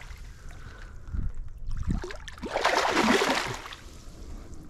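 A hooked fish thrashing at the water's surface beside a landing net, splashing, with the biggest splash from about two and a half to three and a half seconds in.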